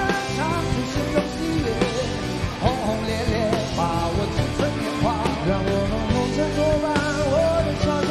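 Live rock band: a male lead voice singing with wavering vibrato on held notes over electric guitar, keyboards and a steady beat.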